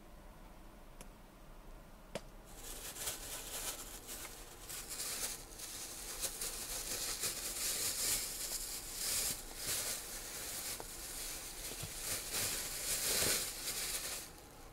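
Plastic bag crinkling and rustling as it is handled and opened by hand. It starts about two seconds in and goes on unevenly, stopping just before the end.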